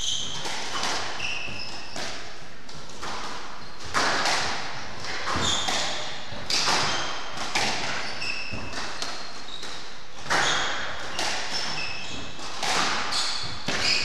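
Squash rally: the ball hitting rackets and the court walls about once a second, with shoes squeaking on the wooden court floor.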